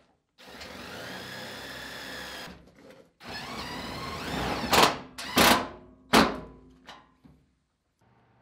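Cordless drill driving self-tapping zip screws into a sheet-metal floor pan. There are two runs of the motor's whine, the second rising in pitch, and near the end three short, loud bursts in quick succession.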